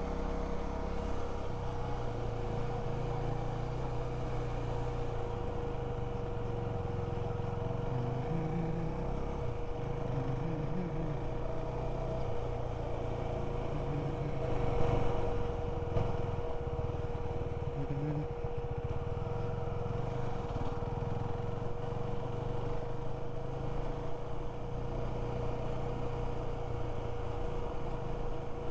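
Motorcycle engine running steadily while riding at road speed, with road and wind noise, heard from an action camera mounted on the bike or helmet. There is a brief louder swell about halfway through.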